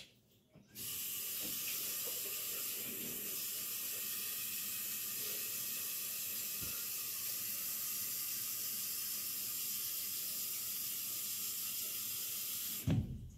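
Water running in a steady, even stream, starting abruptly about a second in and cutting off shortly before the end.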